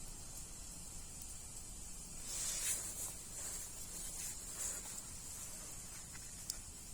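Wood fire burning, with a steady faint hiss that swells into louder hissing surges about two seconds in and again near five seconds, and a few sharp crackling pops near the end.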